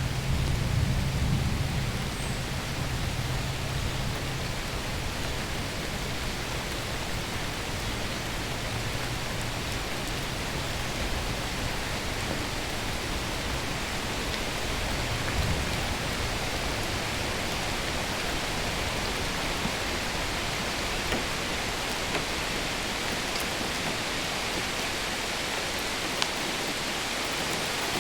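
Steady rain hiss, with a low rumble of thunder dying away over the first few seconds and a brief faint rumble again about halfway through.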